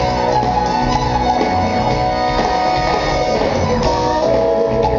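A live soul band playing an instrumental passage: electric guitar, bass and drums with a horn section, held notes over a steady beat.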